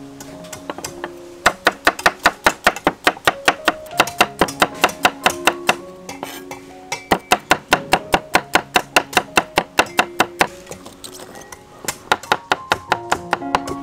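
Kitchen cleaver slicing garlic cloves on a thick round wooden chopping board: quick, even chops at about five a second, in three runs with short pauses between, over background music.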